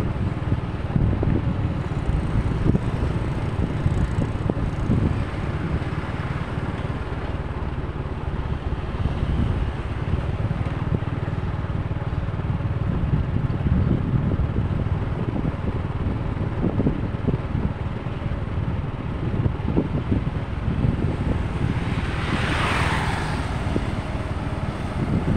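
Wind buffeting the microphone over the steady rumble of street traffic. Near the end, a whine sweeps down in pitch.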